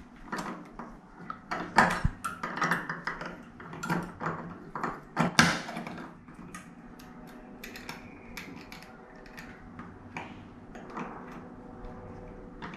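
Small metallic clicks and taps as a chrome toilet roll holder is seated on its wall plate and an Allen key works its grub screw. The clicks come thick and loudest in the first six seconds, then thin out to scattered faint ticks.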